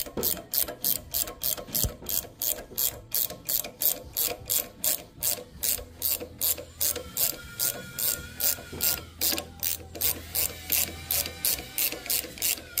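Ratchet wrench clicking steadily, about four clicks a second, as it backs the nut off a valve spring compressor on a cylinder head, slowly releasing the compressed valve springs.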